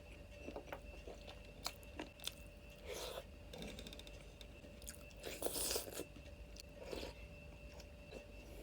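Close-miked chewing and crunching of a meal of chicken, egg, daal and rice, with scattered small clicks and a few louder crunches, the loudest about five and a half seconds in. A faint steady hum runs underneath.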